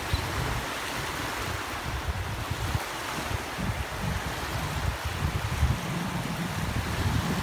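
Small waves washing in and out at the water's edge of a sandy beach, a steady surf wash, with gusts of wind rumbling on the microphone.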